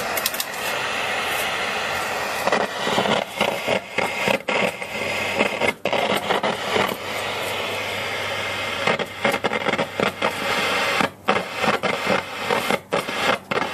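Static hiss from the speaker of a Zenith 25CC50 hybrid tube colour TV, steady at first, then choppy and cutting in and out repeatedly from about two and a half seconds in.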